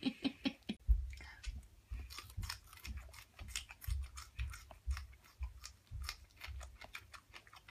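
A man and a white Angora rabbit chewing green beans: quick, irregular crisp crunches, several a second, over dull low thumps.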